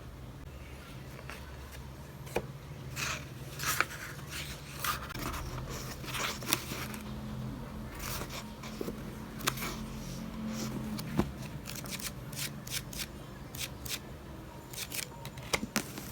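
Scattered small clicks, rustles and scrapes of objects being handled, over a low steady hum.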